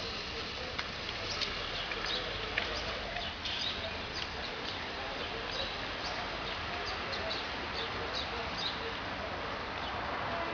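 Small birds chirping, many short high chirps scattered throughout, over a steady hum of city background noise.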